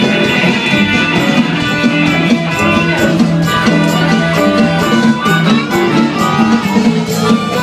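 Live blues band playing: an amplified harmonica plays a solo of held, bending notes over electric bass and a steady drum beat.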